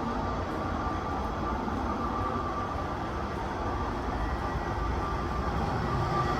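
Electric train running: a steady rumble with a faint, steady high whine.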